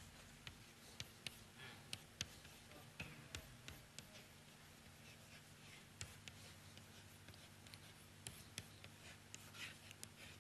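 Chalk writing on a blackboard: faint, scattered taps and short scratches of the chalk as words are written out.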